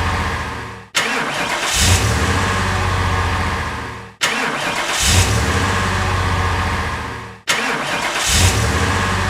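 Car engine starting and running briefly, then dying away to silence, repeated three times at about three-second intervals like a looped sound effect.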